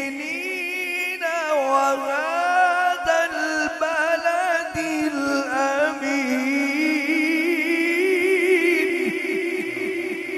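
A man's voice reciting the Quran in melodic tilawat style, drawing out long ornamented notes with a fast wavering vibrato. About six seconds in it climbs to a higher note and holds it.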